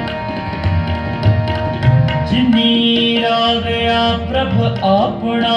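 Sikh kirtan music: tabla playing under sustained harmonium notes, with a voice coming in on long, bending sung notes in the second half.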